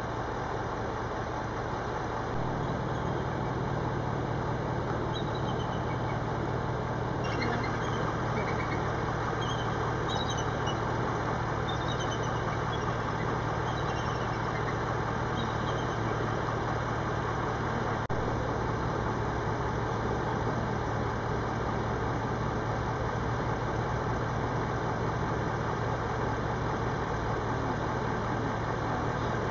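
Fast river water rushing, with a steady low hum over it that comes in about two seconds in, and faint high chirps scattered through the middle.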